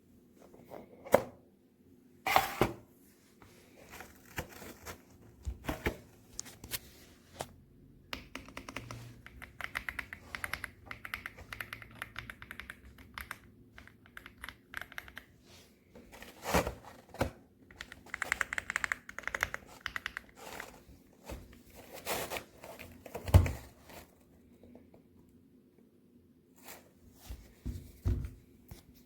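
Typing on an EPOMAKER x Aula F65 mechanical keyboard: runs of rapid key clicks with pauses between them, and a few louder single knocks.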